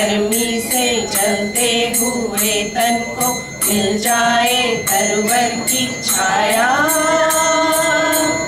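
A group of women singing a song together, with a metallic jingle struck in a steady beat about three times a second. Near the end the voices rise into one long held note, and the song stops just before the end.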